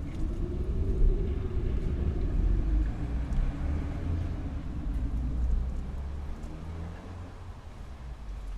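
Low rumble of a passing motor vehicle, its engine note rising and falling in pitch over the first few seconds, then fading away.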